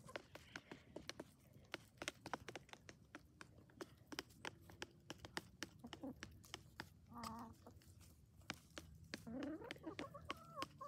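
Chickens pecking seeds from a plastic tray, their beaks tapping it in quick, irregular clicks. A short cluck comes about seven seconds in, and a rising call near the end.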